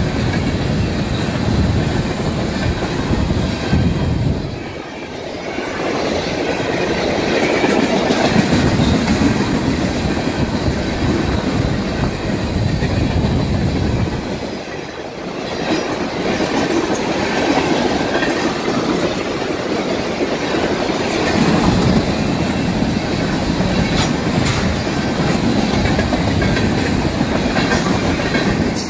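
BNSF freight train's tank cars rolling past at speed: a loud, steady rumble with wheel clatter over the rail joints. The noise eases briefly twice, about 5 and 15 seconds in.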